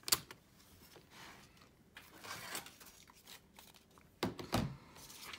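Plastic laptop parts being handled and fitted: one sharp click first, a soft rustling about two seconds in, and two more clicks near the end.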